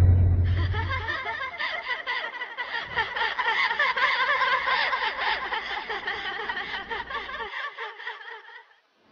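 A woman laughing as a film ghost: a long run of quick laughs that fades away and stops shortly before the end. A deep boom dies out in the first second.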